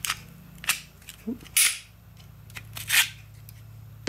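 Sharp metallic clicks and clacks of Glock pistol parts being fitted together during a barrel and recoil spring installation. There are four or five separate clicks, the loudest about one and a half and three seconds in.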